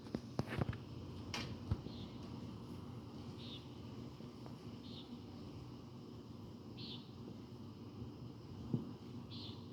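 Quiet night ambience: a cricket chirping in short high chirps every second or two. A few sharp clicks come in the first couple of seconds, and a single dull thump comes near the end.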